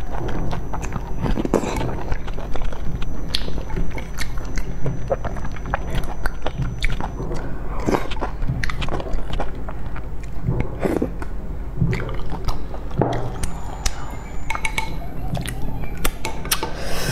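Close-up eating sounds: slurping strands of food from a bowl of spicy broth, chewing and mouth smacks, many short wet clicks throughout, over a steady low hum.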